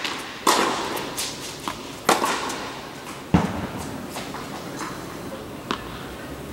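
Tennis balls struck by rackets and bouncing on an indoor hard court: a few sharp pops, each echoing in the large hall, with a duller thud about three seconds in.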